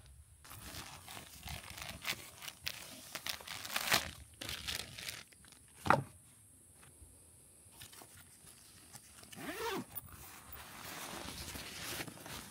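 Irregular crinkling and rustling, with one sharp knock about six seconds in.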